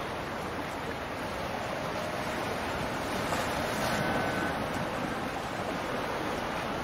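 Steady rushing noise of wind and water, rising a little about three to four seconds in.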